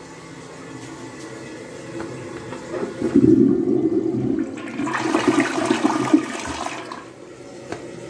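Mansfield Maverick dual-flush toilet flushing: a quieter steady water sound at first, then a loud rush of water draining from the bowl about three seconds in, which tails off near the end.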